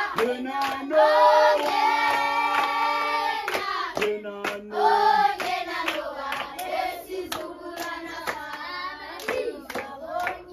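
A group of children singing a hymn together, clapping their hands along with it; the singing grows softer in the second half.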